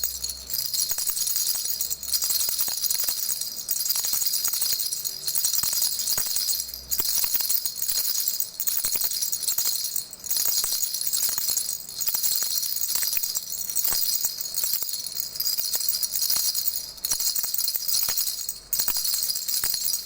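Baby rattle shaken steadily, with brief pauses every second or two.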